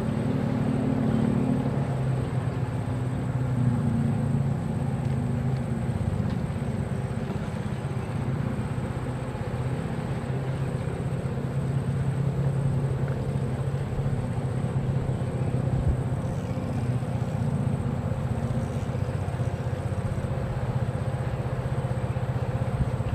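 A steady low engine drone that holds about the same pitch and level throughout.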